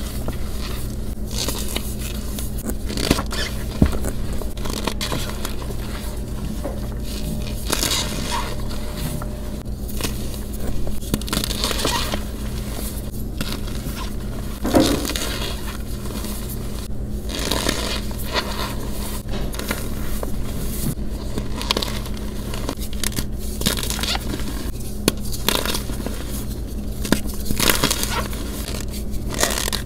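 Fingers crushing glitter-coated gym chalk and pressing into packed cornstarch: a run of irregular crunches and squeaky crackles, over a steady low hum.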